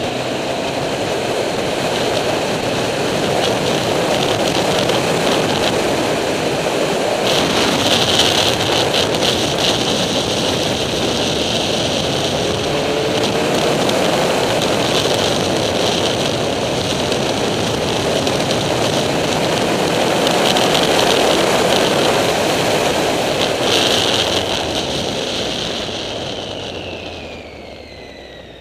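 Triumph Street Triple's three-cylinder engine running at road speed under heavy wind rush on the bike-mounted microphone. Near the end the engine note falls and the sound drops away as the bike slows.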